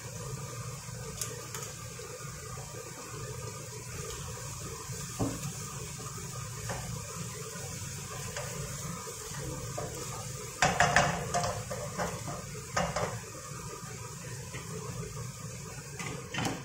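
Chopped onion and garlic sizzling steadily in a frying pan as they are stirred with a wooden spatula. A quick cluster of spatula knocks and scrapes against the pan comes about eleven seconds in, and one more a couple of seconds later.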